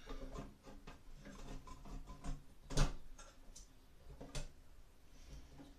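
Scattered metal clicks and knocks as the motor and fan assembly of a Broan 655 bathroom heater and exhaust fan is handled inside its sheet-metal ceiling housing, with the loudest knock about three seconds in and another a little over four seconds in.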